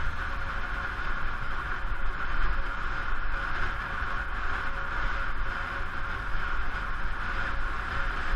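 Wind rushing over a bicycle-mounted GoPro's microphone while riding fast, with a heavy low buffeting rumble and a faint steady whine underneath.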